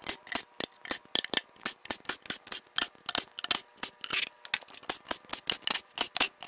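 Oil pan bolts being run out with a cordless impact tool: a quick, irregular run of metallic clicks and rattles, about six to eight a second.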